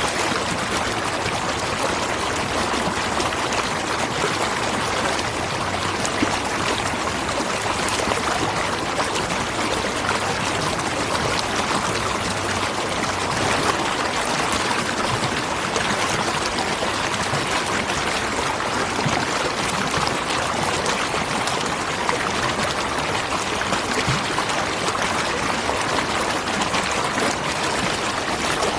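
Waterfall: water falling and rushing steadily into a stream, a constant even splashing without a break.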